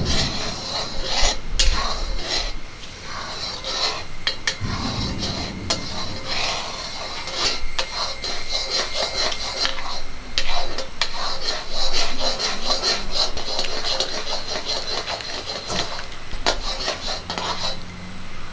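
A spatula scraping around a cast-iron kadai in repeated irregular strokes as it stirs bubbling jaggery syrup, with a steady hiss from the boiling syrup underneath. The syrup is being boiled down until it thickens for peanut candy.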